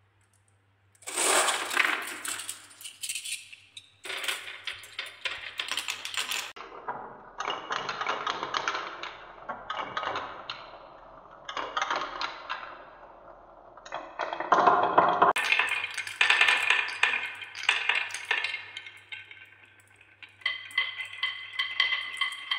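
Glass marbles rolling and clattering down a wooden marble run's spiral funnel and wavy rails: a dense clicking rattle of glass on wood and glass on glass. It starts about a second in and comes in waves. Near the end the clatter takes on a ringing pitch.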